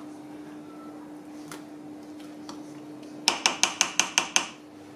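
Spatula tapped about eight times in quick succession against the rim of a stainless steel saucepan to knock off thick strawberry yogurt mixture, each tap ringing, about three seconds in. A faint steady hum runs underneath.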